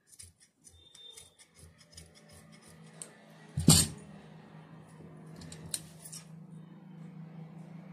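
Large metal tailor's shears snipping through sheer fabric in a quick run of short snips, then one loud knock a little under four seconds in as the shears are set down on the table. A few lighter clicks follow, over a low steady hum.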